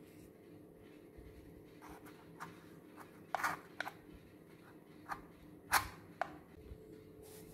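Corrugated cardboard being handled: a small cardboard tube is worked into a hole in a cardboard box, giving a string of short taps and scrapes, the two loudest a little before halfway and about three-quarters of the way through.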